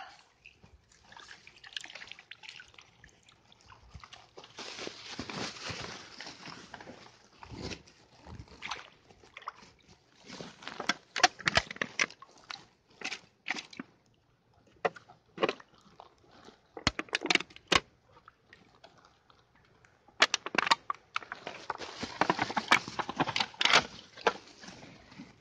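Shallow water sloshing and splashing among sedge and reeds as litter is fished out, mixed with the crinkle of a plastic carrier bag. It comes in uneven stretches, with clusters of sharp clicks and crackles in the middle and a longer spell of splashing near the end.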